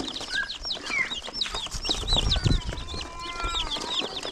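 Broiler chicks peeping in a dense, continuous chorus of short high calls. A low rumble comes about two seconds in.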